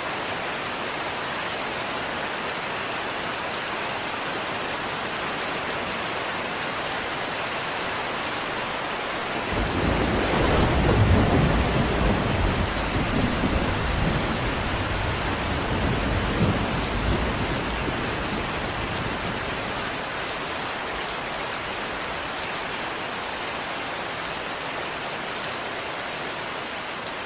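Steady rain, with a roll of thunder that breaks in about ten seconds in and rumbles for several seconds before fading back into the rain.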